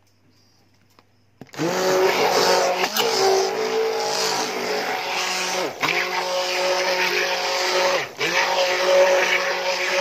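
Handheld electric mixer switched on about a second and a half in, its motor whirring steadily as it churns thick henna paste, with brief dips in the sound every two to three seconds.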